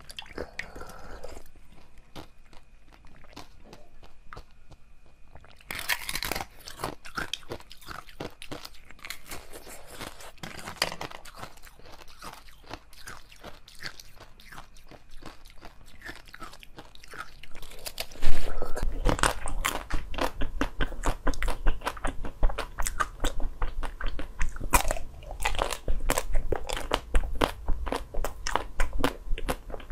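Close-miked mouth sounds of eating: wet chewing of soft jelly, with rapid small crunches. About two-thirds of the way through it turns much louder, into crunchy bites and chewing of a frozen ice-cream bar.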